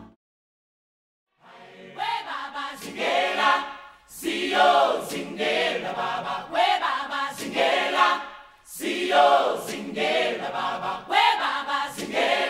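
Background music: a choir singing in phrases, coming in after about a second and a half of silence.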